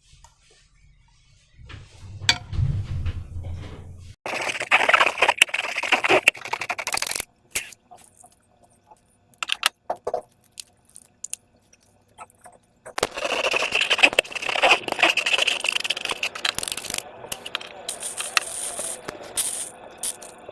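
Slime and transparent balloon rubber being handled and squeezed, giving sticky, crackly squishing. It comes in two long stretches, one about four seconds in and one from about halfway through, with quiet pauses between.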